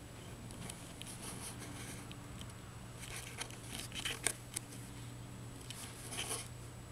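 Soft, close rustling and scattered light clicks, busiest and loudest in the middle, over a steady low hum.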